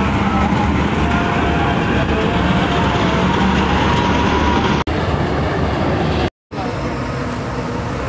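Malkit combine harvester running: a loud, steady drone of engine and threshing machinery with a faint wavering whine over it. The sound breaks off briefly about six seconds in and comes back a little quieter.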